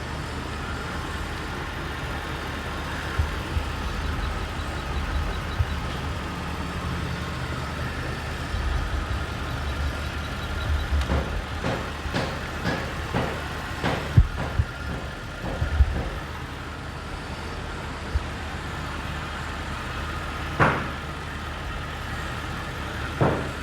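Jaguar engine idling steadily, with a scattering of sharp clicks and knocks about halfway through and one more near the end. The engine has a misfire that the owner traces to a faulty injector rather than the ignition coils.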